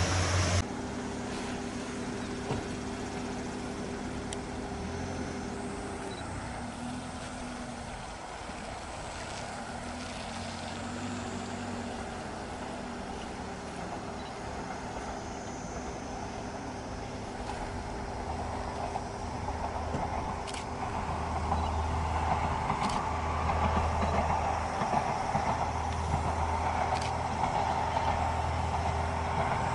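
Diesel railcar (KiHa 47) running in the distance. Its engine drone and low rumble grow steadily louder over the last ten seconds or so as it approaches, with a few sharp clicks.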